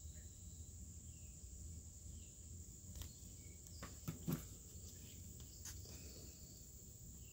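Faint, steady, high-pitched chirring of insects outdoors, with a few soft taps and rustles of comic books in plastic bags being handled.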